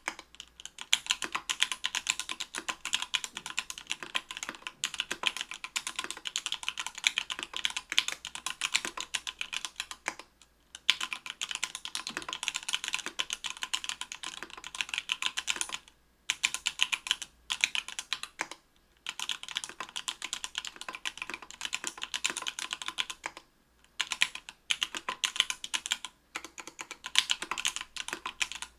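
Fast, continuous typing on an Octagon V3 mechanical keyboard with stock, unlubricated Everglide Sky Blue 55 g linear switches in an aluminium plate, under GMK keycaps. The typing stops for a moment about five times.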